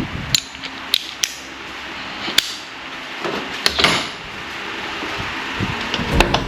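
Scattered sharp clicks and clinks of hand tools and metal parts being handled in the engine bay, a handful spread across a few seconds over a light steady hiss.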